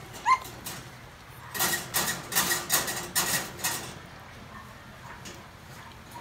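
A toy poodle gives one short, high squeak, followed a second or so later by a run of about eight quick scratchy, rustling noises over roughly two seconds.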